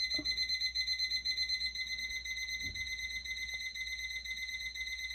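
Digital thermometer beeping: a high electronic tone pulsing rapidly without a break.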